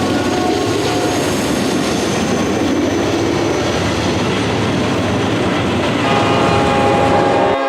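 A diesel-hauled freight train rolls past close by, with a loud, steady rush of wheels on rail. About six seconds in, the locomotive's air horn sounds again and holds into the end.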